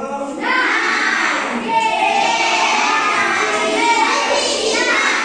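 A room full of children's voices together in unison, starting about half a second in and lasting almost five seconds, louder than the single speaker before and after.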